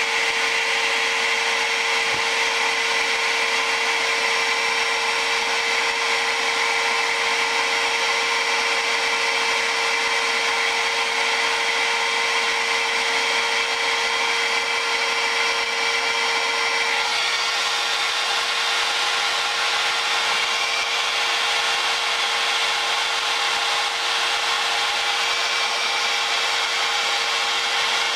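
Hot air gun blowing steadily with a constant motor hum, heating small capacitors on a circuit board. About two-thirds of the way through, the blowing sound shifts slightly.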